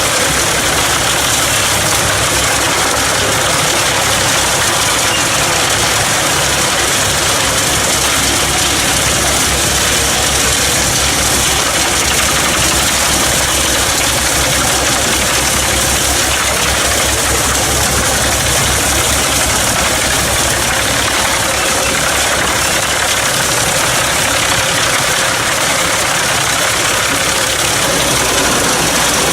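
Pezzolato PTH 700 drum wood chipper driven from the PTO of a 220 hp Fendt tractor, tractor engine and chipper drum running together in a loud, steady din.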